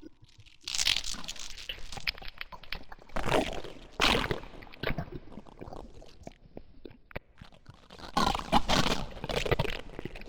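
Sound-designed monster devouring its prey: wet crunching, chewing and biting in irregular bursts, the loudest about a second in, around three to four seconds in, and near the end.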